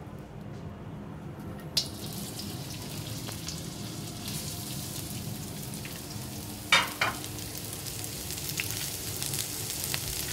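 Vegetables sizzling in a very hot wok. The sizzle starts suddenly about two seconds in, over a low steady hum, and goes on steadily, with one sharp clack near seven seconds.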